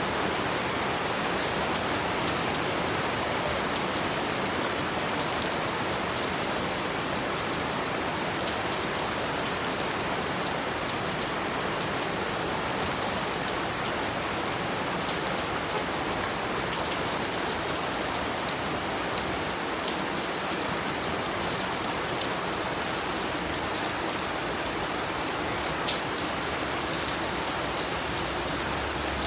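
Steady rain falling, with many small drops ticking and one sharper tick near the end.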